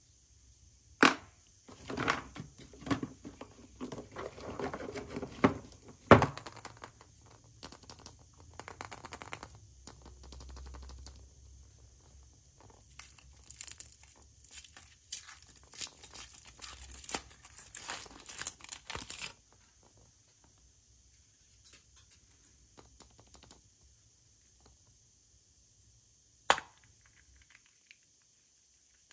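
Plastic and foil packaging being torn and crumpled by hand, in two stretches of crinkling with a few sharp snaps or clicks between them, over a faint steady hiss.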